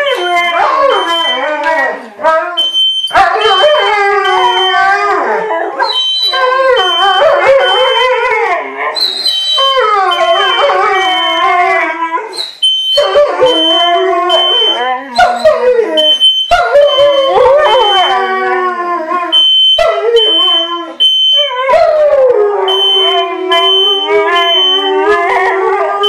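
A Siberian Husky and a German Shepherd howling along to a smoke alarm, their long wavering howls rising and falling with short breaks every few seconds. The smoke alarm beeps over them in repeated bursts of one high steady tone; the dogs are howling in response to it.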